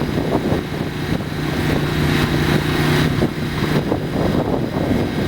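Kohler gasoline marine generator running steadily with a low, even hum, just after a quick start following a year and a half in storage.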